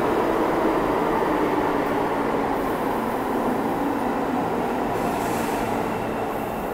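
An R46 subway train running along the far track through the station, a steady rumble of steel wheels on rail and running gear that slowly gets quieter.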